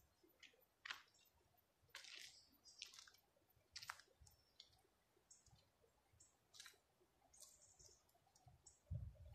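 Near silence: quiet outdoor ambience with faint, scattered short clicks and brief high chirps, and a low rumble that starts near the end.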